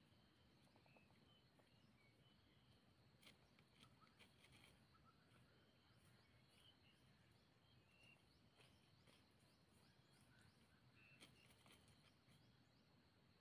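Near silence: faint outdoor ambience with scattered faint bird chirps and a few faint clicks.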